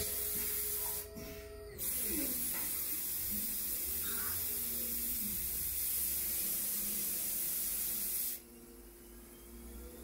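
Haas CL-1 CNC lathe turning a brass bar, coolant spray hissing onto the work over a steady machine whine. The hiss breaks briefly about a second in, a short falling whine follows, and the hiss cuts off suddenly near the end.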